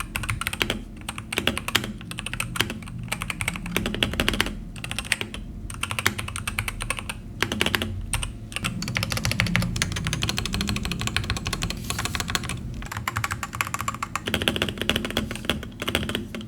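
Typing on a Zuoya X86 75% magnetic keyboard with Gateron White magnetic switches and factory mods: rapid, continuous keystrokes with a couple of short pauses near the middle.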